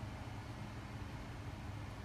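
Steady low rumble of a gas stove burner running under a pot of simmering soup, with a faint constant hum over it.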